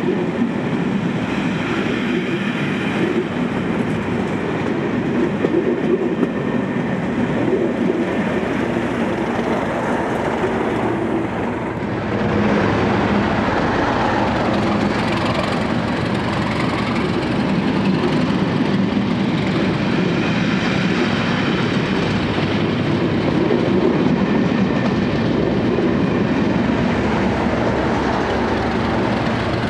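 A Class 37-hauled Network Rail test train passing slowly, its coaches rumbling and wheels clicking over the rail joints. The sound steps up abruptly about twelve seconds in and stays louder as the coaches pass close by.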